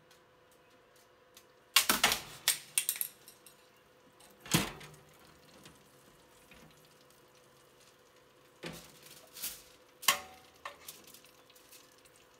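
Metal tongs clanking and scraping against the countertop oven's pan and rack while a roast is lifted out onto foil. There are sharp clatters about two seconds in and again for a couple of seconds past the middle, with quiet between and a faint steady hum underneath.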